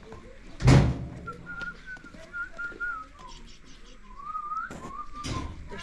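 A sudden loud thump a little under a second in, then a thin, wavering whistle. It is held for a couple of seconds, breaks off, then glides up and settles on a lower steady note. A second, softer thump comes near the end.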